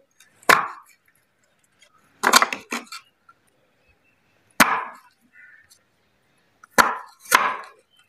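Knife cutting taro root (arvi): a handful of sharp chops, spaced irregularly a second or two apart.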